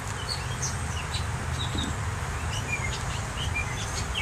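Small birds chirping: short, scattered chirps throughout, over a steady low rumble.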